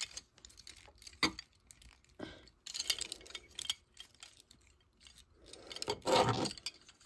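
Plastic parts of a brick-built Transformer figure clicking and rattling as hands flip its limbs around, with sharp clicks about one and two seconds in and a louder clatter of handling near the end.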